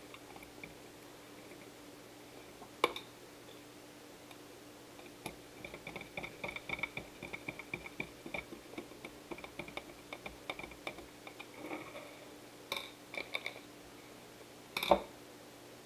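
Screwdriver tightening a metal mounting screw into a CPU cooler's threaded post on a motherboard: a run of small rapid clicks and squeaks from the driver tip and threads. A sharp knock comes about three seconds in, and a louder clack just before the end.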